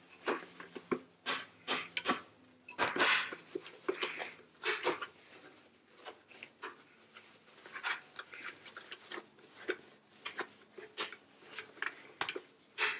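Dry paper towel wiping and rubbing over the serger's plastic housing and looper area, in short irregular scrubbing strokes with a few light knocks.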